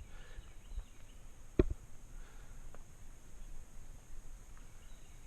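Quiet outdoor range ambience with one sharp knock or bang about one and a half seconds in, and a couple of faint clicks.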